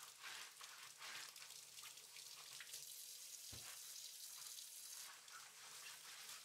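Kitchen faucet running faintly into a sink as vegetables are rinsed under it, a soft even hiss. A single low soft thump about three and a half seconds in.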